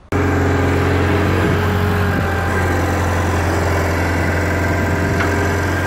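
Compact loader's engine running steadily close by, a loud even hum that holds one speed throughout. It cuts in suddenly just after the start.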